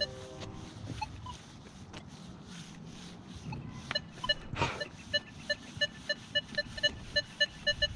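Metal detector sounding off on a buried target: a run of short, identical electronic beeps, about three a second, starting about four seconds in. A single sharp knock comes shortly after the beeps begin.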